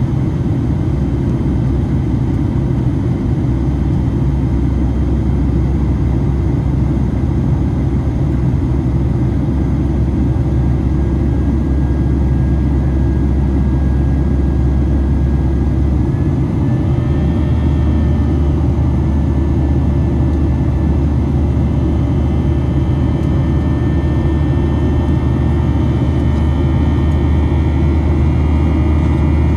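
Boeing 737-800's CFM56-7B jet engines and airflow heard from inside the passenger cabin: a steady, loud rumble with faint engine tones. About halfway through, the engine tones shift slightly higher in pitch.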